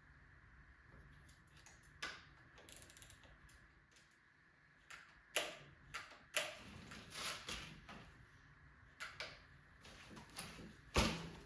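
Irregular light clicks and clinks of hand tools and metal bike parts being handled while working on a mountain bike front end. Sparse at first, they come more often about halfway through, with a sharper knock near the end.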